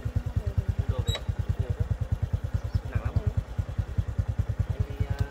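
Small single-cylinder motorcycle engine idling with a steady, even putt-putt of about ten beats a second.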